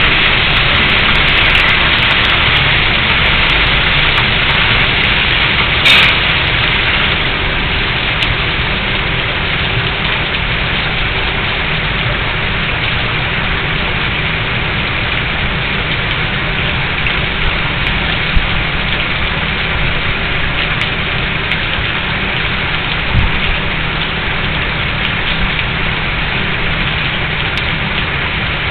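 Steady, dense rushing noise like heavy rain, easing slightly over time, with a sharp crack about six seconds in and a few scattered clicks and a low thump later.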